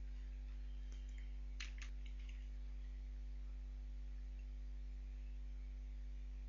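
Steady low electrical mains hum, with two quick clicks about a second and a half in: a double-click that opens a folder on the computer, followed by a few faint ticks.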